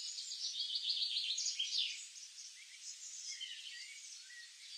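Wild birds chirping and singing, with a fast run of repeated high notes through the first two seconds, then scattered, quieter chirps.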